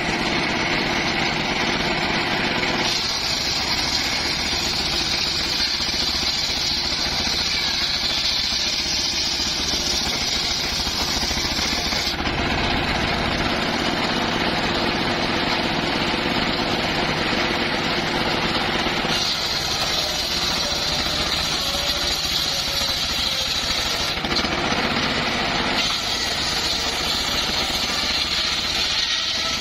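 Engine-driven homemade circular sawmill running steadily, with a higher whine added in several stretches of several seconds each, in keeping with the blade working through small timbers.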